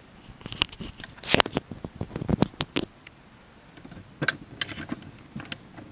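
Footsteps crunching on a leafy forest trail: irregular clicks and crackles, with a quieter pause a little past the middle.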